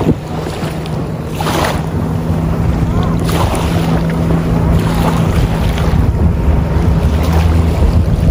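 Motorboat engine humming steadily as the boat passes across the water, its note dropping lower near the end, with wind buffeting the microphone throughout.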